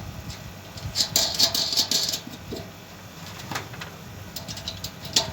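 Metal clicks and scraping as satellite dish parts and bolts are handled and fastened, with a denser run of scraping and clicks from about one to two seconds in.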